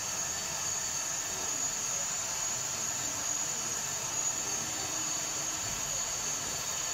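Steady jet-engine hiss with a high whine, the kind of sound effect a model airport plays through its loudspeakers for a model airliner waiting on the runway; it holds level with no breaks.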